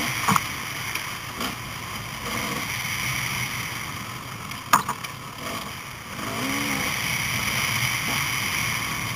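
Off-road motorcycle engines running, heard through a helmet-mounted camera, with a rising-and-falling rev about two-thirds through. Two sharp knocks break through, one just after the start and one about halfway.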